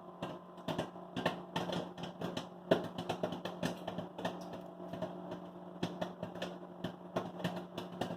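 Microwave popcorn popping away inside a running microwave: many sharp, irregular pops in quick succession over the microwave's steady hum. The kernels are at full popping rate, short of the point where the popping slows.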